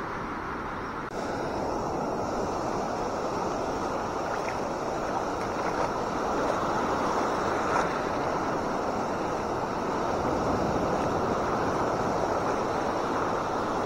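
Surf breaking and washing up a beach: a steady rush of waves, with wind on the microphone. It steps up a little in level about a second in.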